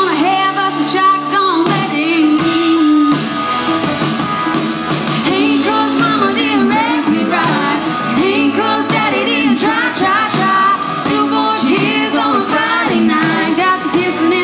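A woman singing live with a pop-rock band, her voice wavering and bending in pitch over electric guitar and the rest of the band.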